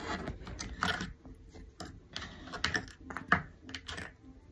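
Irregular plastic clicks, knocks and rustling as a wall-mounted catnip ball toy is handled and fitted to the side of a desk, with one sharper knock a little over three seconds in.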